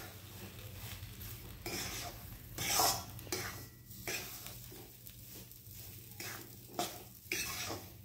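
Metal spatula scraping and turning semolina and crumbled khoa roasting in ghee in a metal kadhai, in repeated rough strokes, the loudest about three seconds in.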